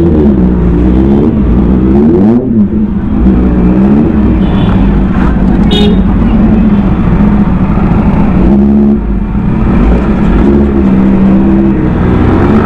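Superbike engine heard close up while riding off at low speed, revs rising and falling at first and then running steadier, with brief dips about two and a half and nine seconds in.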